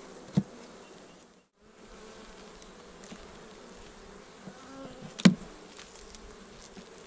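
Honeybees buzzing over an open hive, with sharp wooden knocks as the frames are shifted with a hive tool: a small one near the start and a louder one about five seconds in.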